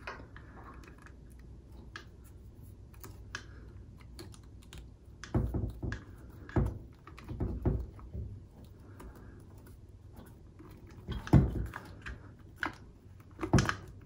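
Scattered clicks and light knocks of hands twisting a plastic wire nut onto wires and handling the garbage disposal's metal housing, with several louder thumps in the second half.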